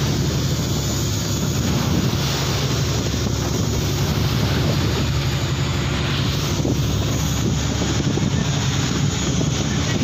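A fishing boat's engine running steadily while the boat is under way, with water splashing along the hull.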